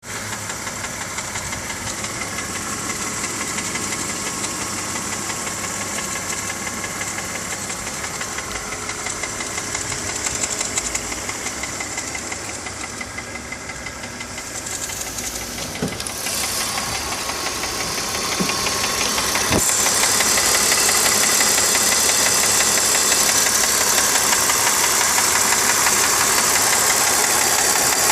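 BMW M54 straight-six engine idling warm, with a fast ticking from the front of the engine that is heard only at idle. It gets louder about two-thirds of the way in, with a few short knocks just before.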